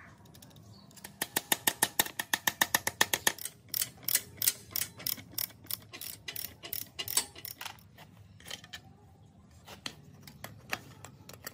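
Socket ratchet wrench clicking as it turns a mini motorbike's front axle nut: a fast, even run of about ten clicks a second, then slower, more spaced clicks, and a few scattered metal clicks near the end.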